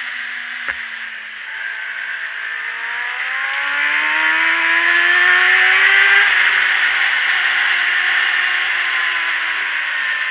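Onboard sound of a sport motorcycle's engine at speed, with wind rushing over the bike-mounted microphone. The engine pitch climbs steadily from about three seconds in as the bike accelerates, then levels off and dips slightly near the end. A single sharp click comes about a second in.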